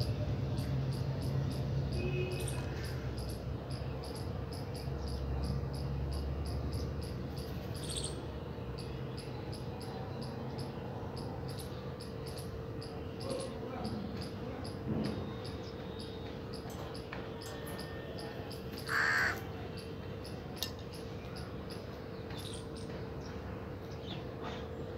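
Steady cricket chirping in even pulses, about three a second, over a constant low hum, with a single house crow caw about three-quarters of the way through.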